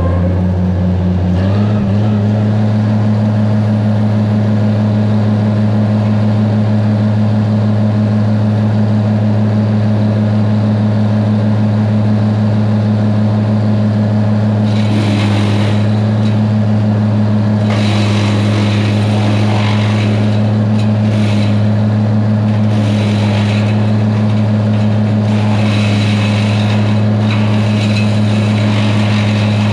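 Loader's engine running steadily, its speed stepping up about two seconds in and then holding; later come several stretches of hissy, higher noise over the engine.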